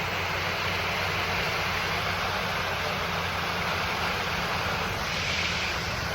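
Steady rushing of a waterfall cascading down beside the road, an even, unbroken roar of falling water.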